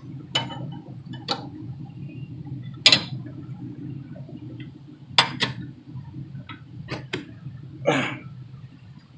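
Metal hand tools and brake parts clinking and knocking against each other while a rear brake caliper bracket is bolted back on: about eight sharp separate clinks at irregular spacing, over a steady low hum.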